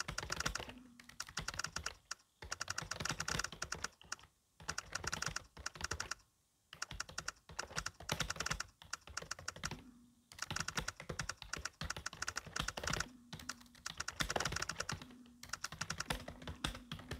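Fast touch-typing on an external Dell computer keyboard: dense runs of key clicks, broken by a few brief pauses.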